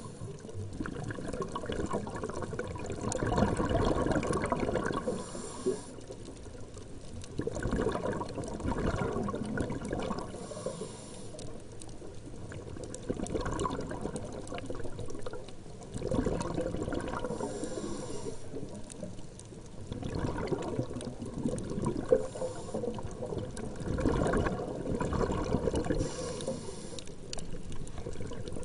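Water sloshing and trickling, swelling and fading every few seconds, with a few small clicks.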